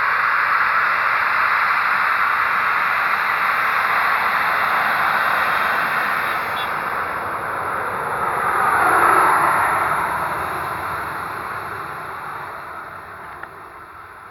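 Boeing 737-800's CFM56-7B turbofan engines at taxi power: a steady rushing hiss with a thin high whine, loudest as the jet passes about nine seconds in, then fading as it moves away.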